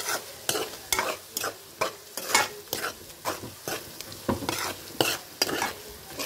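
A steel spoon stirring and scraping boiled eggs and fried onion masala around a metal pan in quick strokes, about two a second, over the sizzle of hot oil as the eggs fry.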